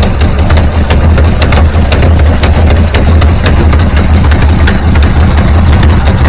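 Pontiac Firebird car engine idling steadily at low revs, with sharp regular ticks about four times a second, while its ignition timing is being set at the distributor.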